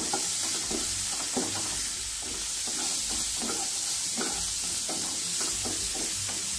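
Chopped onions sizzling in hot oil in a nonstick kadai as a wooden spatula stirs them, scraping across the pan in quick repeated strokes, about three a second.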